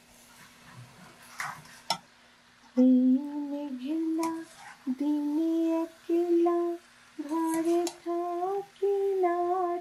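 A woman humming a slow tune in held, stepping notes, starting about three seconds in. Before it, a metal spoon clinks against the steel cooking pot during stirring.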